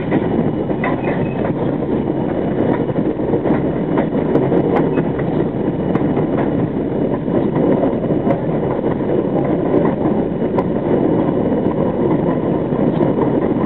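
R42 subway train running on elevated track, heard from inside the lead car: a steady, loud rumble of wheels on rails with scattered sharp clicks.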